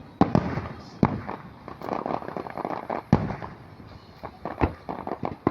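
Aerial fireworks going off: a run of sharp bangs, with a deep boom about three seconds in, and crackling between the bursts.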